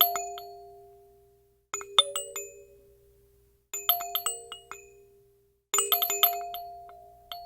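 Bell-like chime sound effect: a jangly cluster of dings that rings on and fades, repeated about every two seconds, four times.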